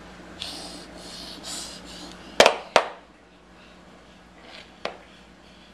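A plastic toy airplane knocking sharply twice against a hardwood floor, about two and a half seconds in, then a lighter click a couple of seconds later.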